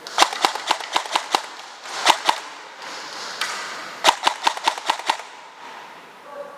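AR-15-style gun firing in three strings of rapid shots, about five a second: a run of six or so, then two, then another run of about seven.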